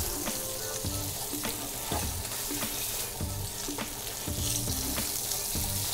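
Hake fillets sizzling skin-side down in hot olive oil in a frying pan, a steady hiss with scattered small crackles as the skin crisps.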